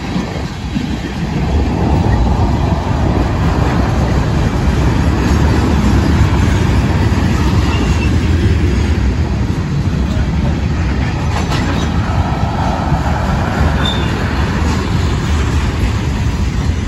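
Freight train cars, mostly tank cars, rolling past close by: a steady rumble of steel wheels on the rails that grows louder about a second and a half in.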